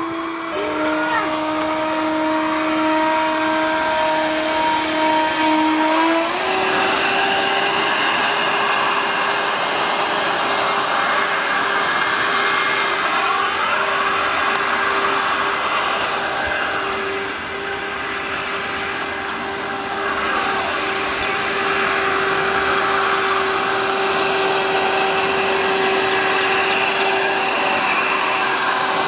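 Homemade RC jet boat's twin electric ducted fans running with a steady whine over rushing air; the pitch steps up about six seconds in and holds.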